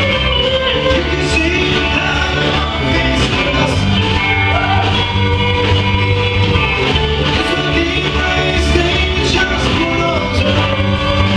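Live rock band playing at full volume, with steady bass notes under the music and cymbal hits.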